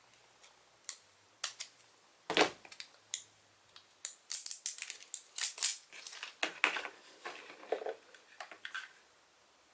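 Packaging being cut and handled with scissors: scattered clicks, one sharp snap about two and a half seconds in, then a dense run of crackling and clicking for several seconds.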